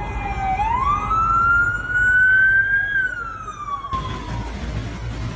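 Emergency vehicle siren wailing over the low rumble of city street traffic. Its pitch dips, climbs slowly, then falls away, and it stops after about four seconds.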